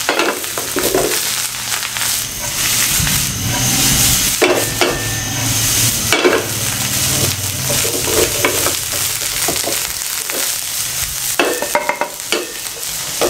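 Fried rice sizzling in a hot frying pan while it is stirred and tossed with a wooden spatula, with repeated scrapes and knocks of the spatula against the pan over a steady sizzle.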